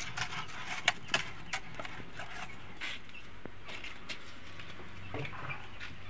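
Sand being stirred by hand in a plastic tray: light gritty scraping with scattered sharp clicks and knocks, several in the first couple of seconds and fewer after.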